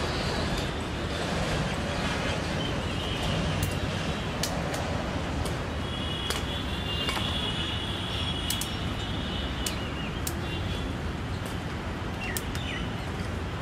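Outdoor street ambience: a steady traffic hum, with a dozen or so sharp clinks scattered through it from steel cooking pots and lids being handled.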